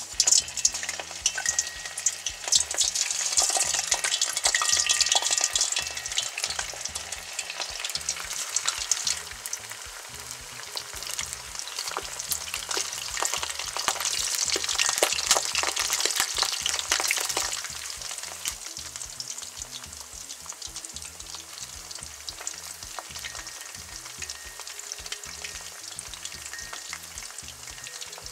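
Chicken thigh pieces and Brussels sprouts deep-frying in 175 °C oil in a wok: a dense crackling sizzle. It is loudest for the first several seconds as chicken goes in and again from about twelve to seventeen seconds in as the sprouts are added, then settles to a steadier, quieter bubbling.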